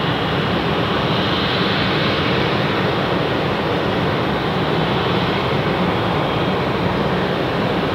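Boeing 777's jet engines at idle thrust as the airliner taxis, a steady rushing noise with a faint high whine on top.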